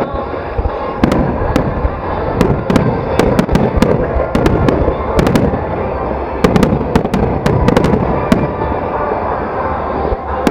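Fireworks display: a continuous rumble of shell bursts with many sharp, irregular crackles and pops layered over it.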